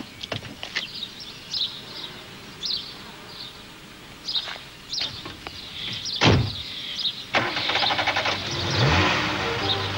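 Birds chirping, then about six seconds in a car door slams shut. A starter cranks and the car's engine catches, revving up near the end.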